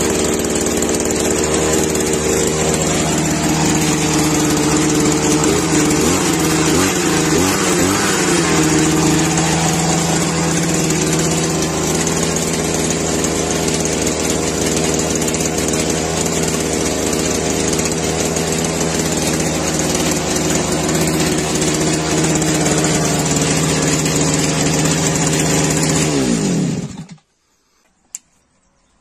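Small two-stroke engine of a Chinese petrol brush cutter running steadily after a cold start, its speed wavering a few seconds in. Near the end it is shut off, the note dropping briefly before it stops.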